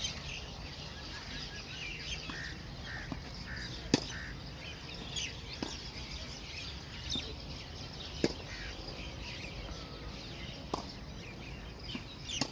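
Birds chirping and twittering all through, with a few sharp pops of a tennis ball being hit several seconds apart, the loudest about four seconds in.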